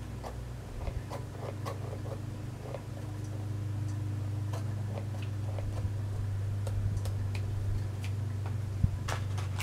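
Scissors cutting open a small cardboard box: light, irregular snips and ticks, with one sharper click near the end, over a steady low hum.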